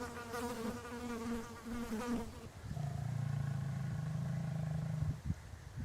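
A fly buzzing for about two seconds, then a lion growling low and steady for a couple of seconds before it stops.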